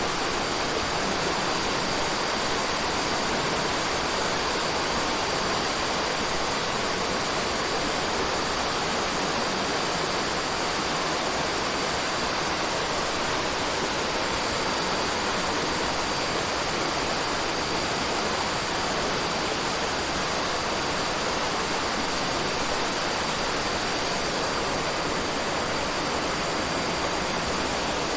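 Forest ambience: a steady, even rushing like running water, with a thin high whine held steady over it.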